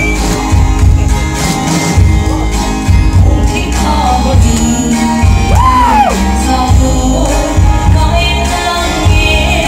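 A live band with drum kit, electric and acoustic guitars and keyboard playing a song, with a woman singing over it. It is loud and heavy in the bass, and it echoes as it would in a large hall.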